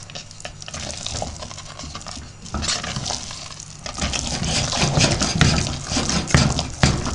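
Wooden spoon stirring and beating a thick, sticky curd paste in a stainless steel pot, wet and irregular, growing louder about four seconds in. The melted curd is turning into an elastic cheese paste.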